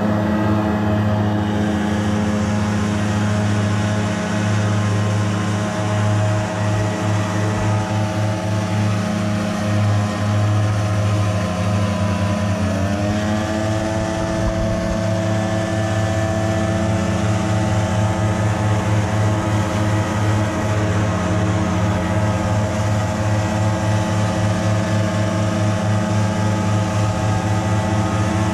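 Several gas-powered backpack leaf blowers running together while blowing leaves, a steady engine drone over a rush of air. About twelve seconds in, one engine's pitch rises a little and holds there.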